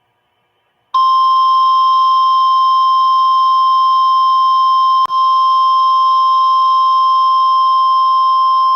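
NOAA Weather Radio's 1050 Hz warning alarm tone: a single loud, steady electronic tone that starts about a second in and breaks off very briefly with a click about four seconds later. It signals that a warning message, here a severe thunderstorm warning, is about to follow.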